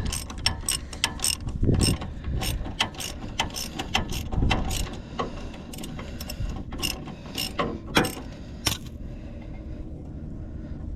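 Hand ratchet wrench clicking as a bolt is backed out: a string of separate sharp clicks, a few a second, that stop near the end.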